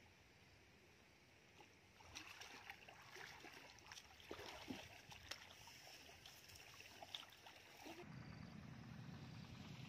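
Faint, irregular small splashes and trickling of shallow water in a muddy ditch, followed by a steady low rumble near the end.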